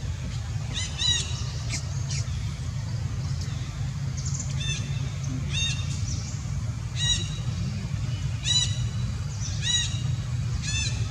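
An animal calling in short, high, arched calls, about eight of them, roughly one every second to second and a half, the first two as a quick pair. Under them is a steady low rumble.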